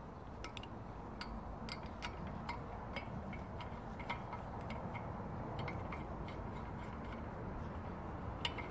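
Irregular sharp metallic clicks, about two a second, as a wrench turns the screw of a bearing puller that is drawing a ball bearing off a motor shaft. A steady low background noise runs underneath.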